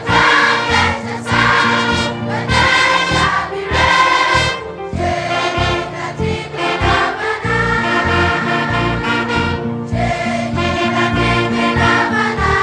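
Children's choir singing a hymn with a youth orchestra of strings, clarinets, saxophones and brass accompanying. It is sung in held phrases, with short breaks about five and ten seconds in.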